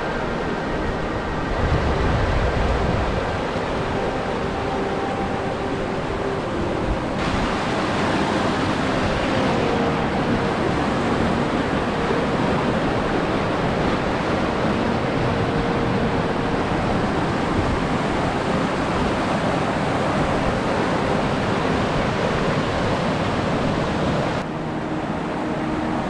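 Fast, muddy mountain river rushing over boulders: a steady, loud rush of water. The sound shifts abruptly about seven seconds in and drops back near the end.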